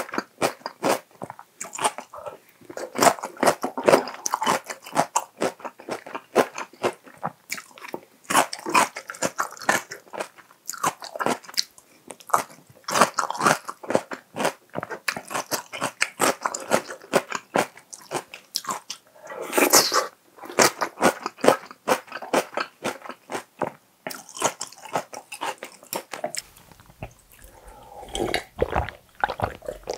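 Close-miked chewing of crisp cucumber and onion salad: many crunches and wet mouth clicks. Near the end, gulps of water drunk from a glass.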